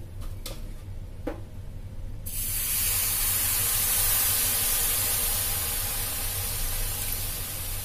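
Water pouring from a jug into a hot pan of dry-roasted vermicelli, a steady hiss that starts suddenly about two seconds in, after a couple of light clicks.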